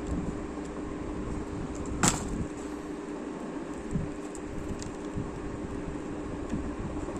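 Steady low hum, with one sharp click about two seconds in and a softer knock near four seconds as small laptop parts are handled and fitted.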